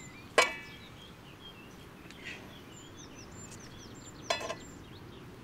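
Small birds chirping and twittering over a steady outdoor hiss, broken twice by a sharp ringing clink, about half a second in and again near the end, the first one louder.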